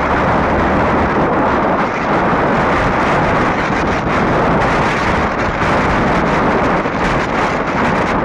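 Steady wind rushing over the microphone of a phone held up on a moving vehicle, with road and vehicle noise beneath.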